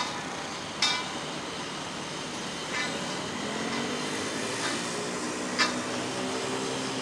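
Hydromill trench cutter rig running on test: a steady engine and hydraulic noise with four sharp metallic knocks, the loudest about a second in. From about three seconds in, an engine note rises in pitch and then holds.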